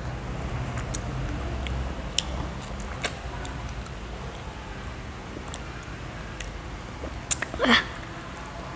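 A child eating ripe mango flesh off the piece by hand: scattered wet mouth clicks and smacks over a low steady hum, with a louder short mouth sound near the end.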